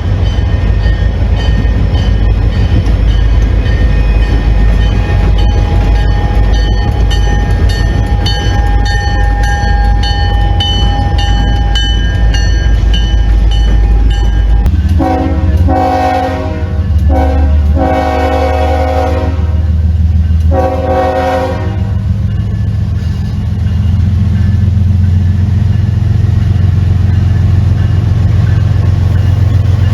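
Diesel locomotive running with a heavy low rumble, then sounding its multi-chime air horn in four blasts about halfway through, the third the longest, before the engine rumble carries on.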